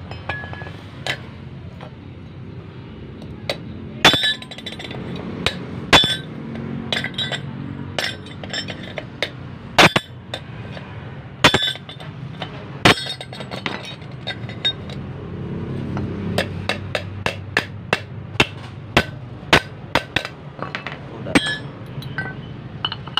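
Hammer tapping on metal: irregular sharp, ringing strikes, closer together in the second half, while a new bushing is fitted in a backhoe starter motor.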